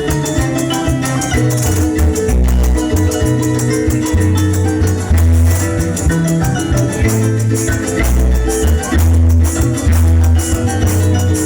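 Instrumental joropo llanero music: a harp playing quick plucked melody lines over strummed strings, maracas shaking in a steady fast rhythm, and deep bass notes.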